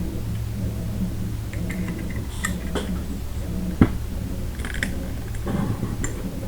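Small metal trigger-group parts being handled and pressed into a 3D-printed AR-9 lower receiver: light clicks and rattles, with one sharp click near the middle as the disconnector is pushed down over its spring. A steady low hum runs underneath.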